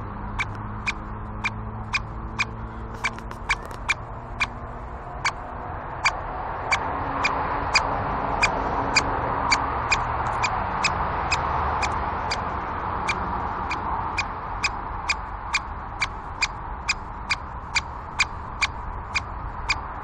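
Great spotted woodpecker giving sharp, short 'kik' calls over and over, at about two a second.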